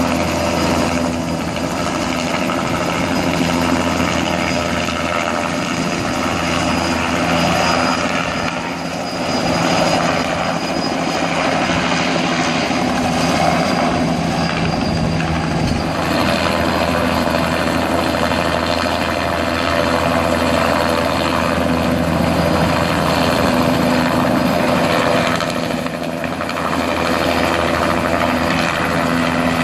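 Bell light helicopter with a two-bladed main rotor, its turbine and rotor running steadily in hover and flight. The level dips briefly about nine seconds in and again near the end.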